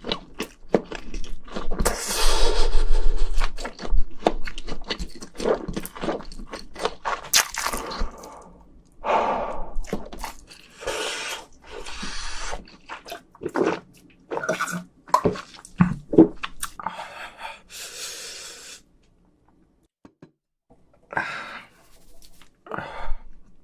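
Close-miked mukbang eating: irregular chewing and crunching with mouth clicks and sharp gasping breaths from the heat of very spicy food. A brief silence comes about two-thirds of the way through.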